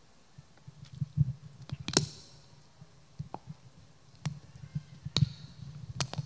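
Irregular clicks and taps with low thumps of handling close to a microphone, as a plastic water bottle is capped and handled at a lectern; the sharpest click comes about two seconds in.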